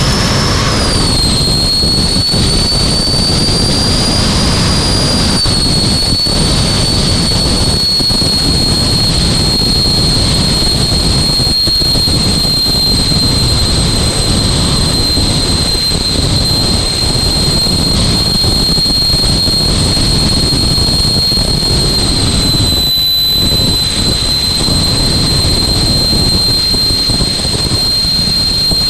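Jet car's jet engine running, heard from inside the cabin: a loud, steady high whine over a low rumble. The whine falls in pitch about a second in and steps down slightly a couple more times.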